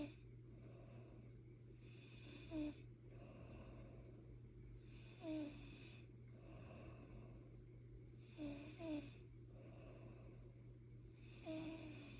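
Snoring: a short, rasping snort about every three seconds, one of them doubled, with breathy hiss in between. A steady low hum runs underneath.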